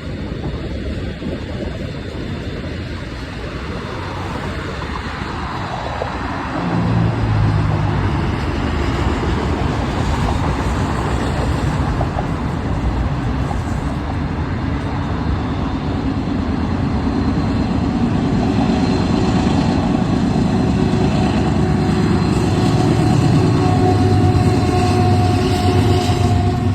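Union Pacific manifest freight train rolling past: a steady rumble of steel wheels on the rails. About seven seconds in, a lower steady drone comes in and the sound grows gradually louder toward the end.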